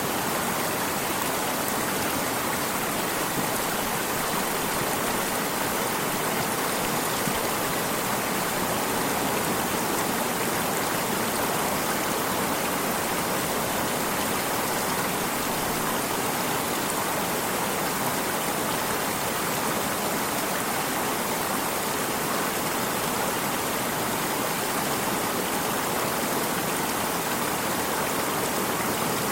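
Water stream flowing, a steady rushing noise that does not change.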